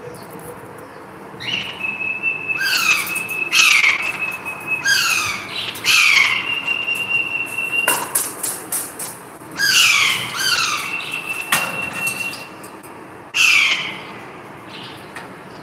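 Pet parakeets calling: loud, sharp squawks that slide down in pitch, given in quick runs, with a high steady whistle held for about a second between them, three times. Two sharp knocks come about halfway through.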